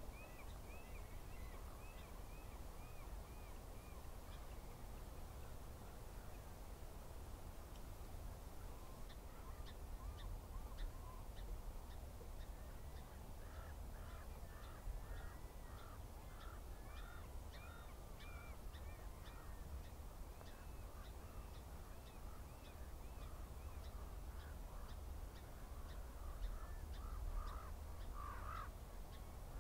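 Runs of short, repeated bird calls, several notes a second, at the start, again in the middle and near the end, over a steady low rumble.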